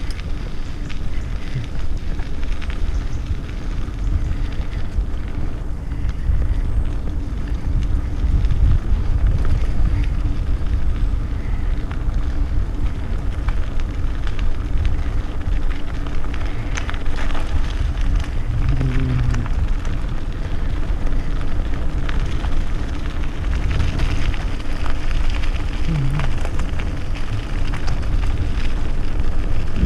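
Mountain bike rolling fast over a gravel forest trail: steady wind rumble on the microphone with the crunch of tyres on gravel and scattered clicks and rattles from the bike over bumps.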